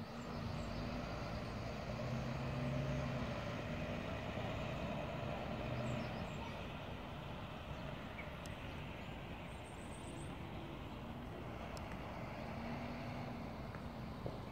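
Road traffic rumbling steadily. A vehicle's engine hum rises about two seconds in and fades after about six seconds, with a fainter hum again near the end.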